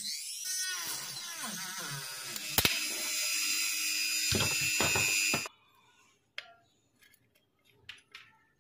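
Handheld electric rotary tool with a small disc bit cutting through a plastic enclosure. Its whine rises and falls in pitch as it bites, then holds steady. It cuts off suddenly about five and a half seconds in, followed by a few faint clicks of plastic parts being handled.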